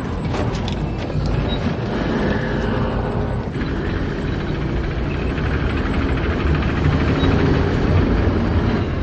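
Steady, loud engine-like drone, heavy in the low end, like a vehicle or aircraft running, with music faintly under it.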